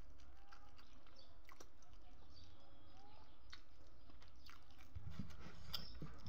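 Close-up mouth sounds of a person eating rice with her fingers: scattered small wet clicks and smacks of chewing and finger-licking, getting louder about five seconds in.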